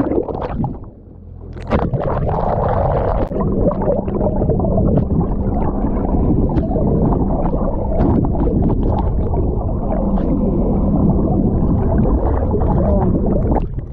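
Loud, muffled rushing and gurgling water noise with scattered clicks, starting sharply about two seconds in and stopping just before the end.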